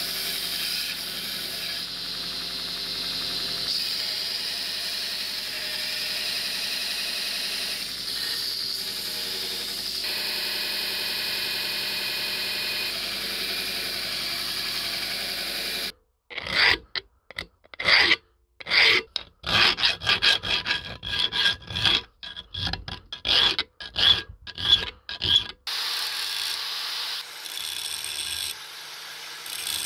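Bench belt sander grinding the steel of a knife blank cut from an old saw blade, a steady grinding noise. About halfway through it breaks into short bursts with abrupt silences between. Near the end an angle grinder's disc grinds on the blade.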